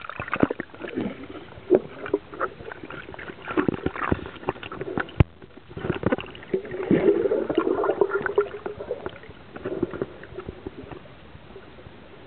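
Water sloshing and gurgling with many scattered sharp knocks and clicks, busiest in the middle and dying down near the end.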